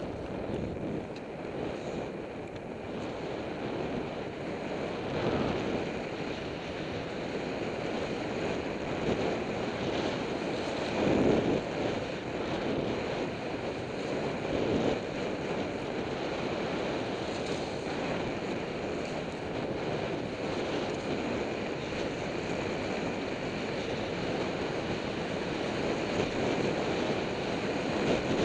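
Wind rushing over an action camera's microphone during a fast run down a groomed piste, mixed with the hiss of edges carving and scraping the hard-packed snow, swelling louder on the turns, most strongly twice around the middle.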